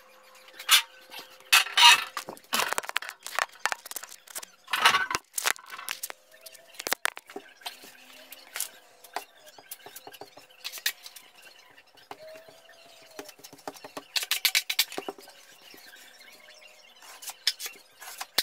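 Drywall taping knife scraping and squeaking over joint compound and paper tape on drywall, in a series of quick swipes and taps with a few brief high squeaks. The audio is time-accelerated, so the strokes come fast and sound high-pitched.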